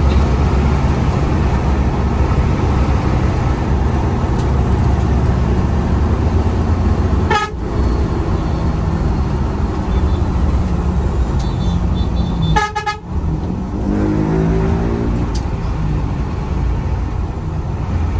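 Intercity bus's diesel engine running under way, with steady engine and road drone in the cabin. A horn sounds briefly about seven seconds in and again, a little longer, about thirteen seconds in.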